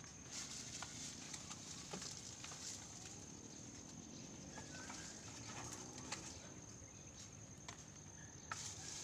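Faint outdoor garden ambience: scattered light clicks and rustles, a few distant bird calls, and a faint steady high-pitched whine.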